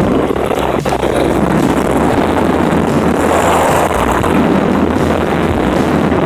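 Steady, loud rush of bathtub water with the microphone at or under the surface among bubbles.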